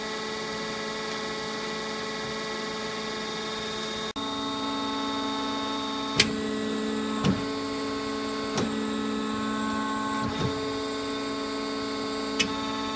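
1996 Romi Bridgeport Power Path 15 CNC lathe running, a steady whine of several tones. It breaks off for an instant about four seconds in, then a handful of sharp clicks or knocks sound over it in the second half.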